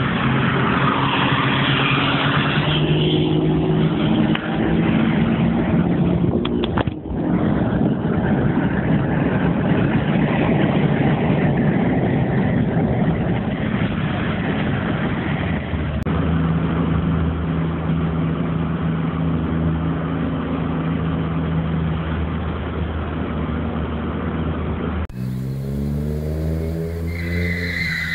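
Daihatsu Charade GTti's turbocharged three-cylinder engine pulling hard, heard from inside the cabin, with a brief dip in the sound about seven seconds in. Near the end, heard from outside, the engine revs up in a rising sweep as the car comes around a bend.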